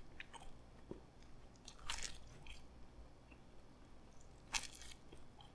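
Close-miked chewing of baked pizza crust with no sauce or cheese, faint crunching and mouth clicks. There are two louder crunches, about two seconds in and near the end.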